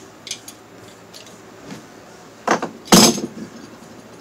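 Tools and parts being handled: a few light clicks, then two loud clanks about half a second apart, the second the loudest and briefly ringing.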